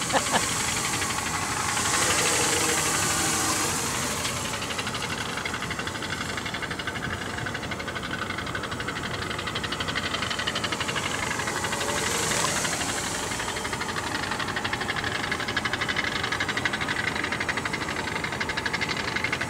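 Electric quadcopter's motors and propellers buzzing steadily in flight, swelling louder about two seconds in and again about twelve seconds in as it passes close.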